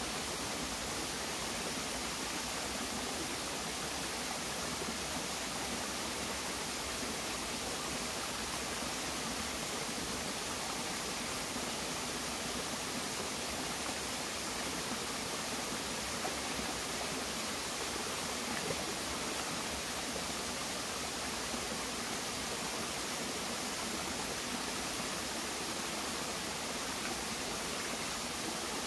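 Shallow stream running steadily over rocks, an even rushing of water.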